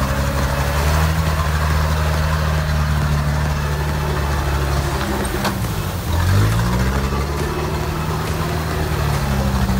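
Off-road 4x4 vehicle's engine running under load, steady at first. About six seconds in the pitch drops, then climbs again as the engine picks up speed.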